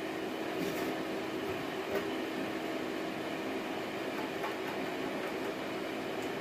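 Small MIG welder switched on and idling: its cooling fan and transformer give a steady hum with one held tone.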